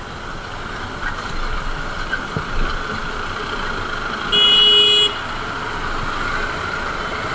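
Steady traffic and motorcycle running noise in slow city traffic, with one short vehicle horn honk about four seconds in, the loudest sound.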